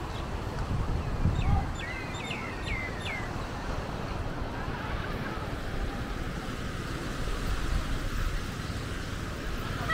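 Steady wash of small waves on a sandy beach with wind rumbling on the microphone. About two seconds in, a bird gives a quick run of five or so short high chirps.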